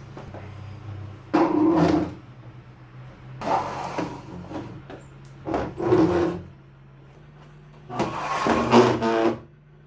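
Four scraping strokes, each about half a second to a second and a half long, over a low steady hum.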